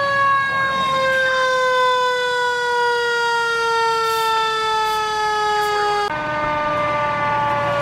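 Fire engine siren, one long wailing tone that slides slowly down in pitch. About six seconds in it breaks off suddenly and picks up again a little higher, still falling slowly.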